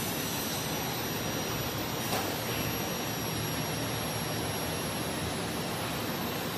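Steady rushing machine noise of a running PUR profile-wrapping line, with a faint high whine throughout and one light click about two seconds in.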